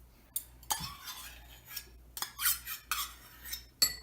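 Spoons clinking and clattering against dishes, a string of irregular sharp knocks and short scrapes, the loudest knock near the end.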